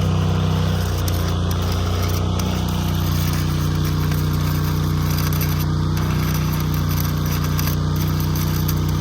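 Engine-driven welder running steadily under load, with the crackle of a stick-welding arc over it during an overhead weld on a steel pipe flange.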